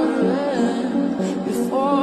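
Background music: a song with a sung melody over sustained backing chords.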